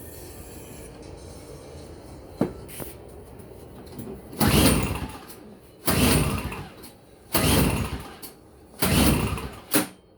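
Three-horsepower two-stroke engine of a Toro CCR 1000E snowblower cranked four times, about a second and a half apart, without catching; a sharp click comes before the first attempt and after the last. The engine fails to start, and the owner wonders about a spark problem.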